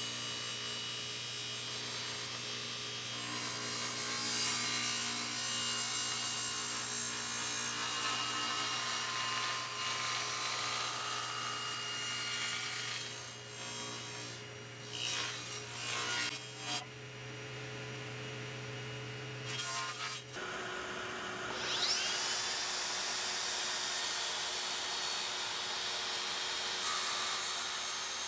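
Table saw running and cutting a wood panel on a crosscut sled, a steady hum under the cutting noise. About twenty seconds in it gives way to a Makita cordless track saw spinning up with a rising whine and then running steadily.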